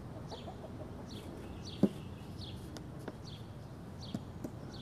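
Farmyard birds: a short, high, falling chirp repeated every half second or so, with chickens clucking low beneath it. One sharp click about two seconds in.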